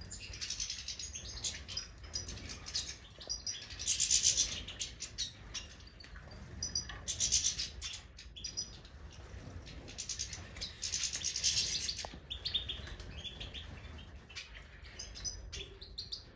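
Major goldfinches chirping and twittering, with scratchy, buzzy bursts of song every few seconds.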